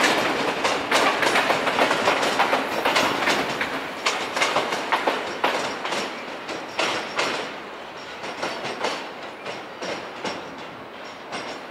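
Passenger coaches rolling over the tracks, their wheels clacking irregularly over rail joints and points. The sound fades steadily as the train draws away.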